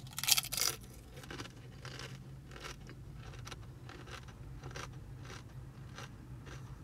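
A bite into a crispy fried cream cheese rangoon, a loud crunch at the start, then crunchy chewing in short crisp clicks. A low steady hum runs underneath.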